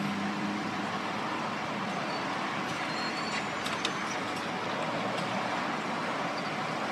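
Steady road traffic noise at a busy intersection, with a low engine hum that fades out in the first half second and a few faint clicks a little before the middle.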